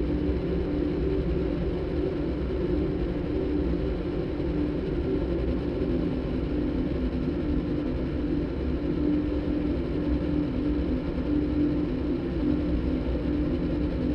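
Electronic soundtrack made by cross-synthesizing a motorbike engine recording with a đàn bầu (Vietnamese monochord) concert recording: a steady, engine-like drone with a held tone over a low rumble.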